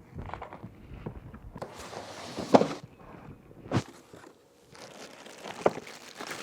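Cardboard box and packaging being handled and opened: rustling and scraping in two spells, with a few sharp knocks, the loudest about two and a half seconds in.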